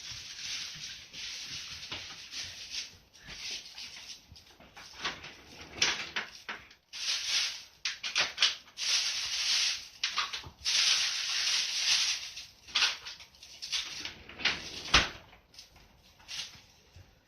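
Cinnamon Java sparrow singing: bursts of rapid clicking, chirping notes with short pauses between phrases, louder in the middle. A single sharp knock sounds about fifteen seconds in.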